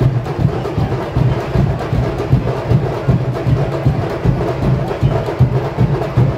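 A samba school's percussion playing a steady, driving samba rhythm, with deep drum beats and many sharp strokes packed over them.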